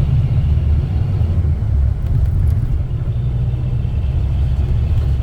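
Bus driving, with a steady low engine and road rumble.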